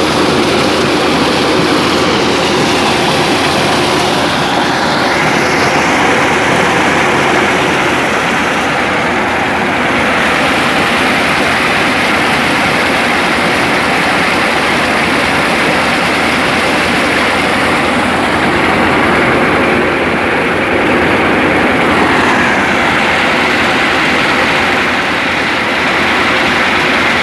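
Engine-driven corn sheller running loud and steady: an engine hum under a dense, even noise from the threshing machine, with slight shifts in pitch a few times.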